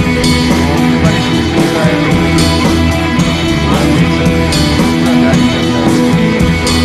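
Loud background music, a rock-style track.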